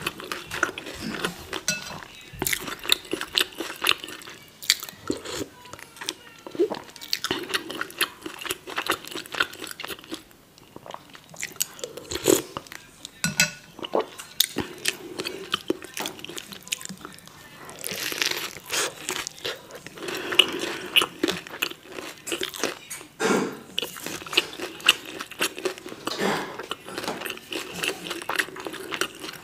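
Close-miked chewing of a soft tortilla taco roll: many short, wet mouth clicks and smacks throughout.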